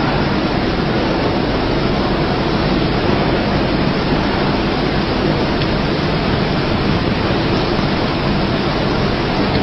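A steady, even hiss of noise with no swell or break, and no voice or music over it.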